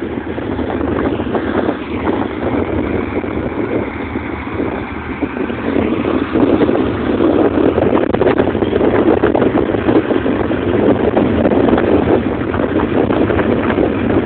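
Tractor engine running steadily as it pulls a round baler through a hay field, the baler working behind it; a little louder from about six seconds in.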